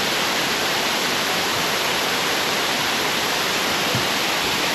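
Steady rush of water pouring down a small waterfall, an even hiss with no breaks.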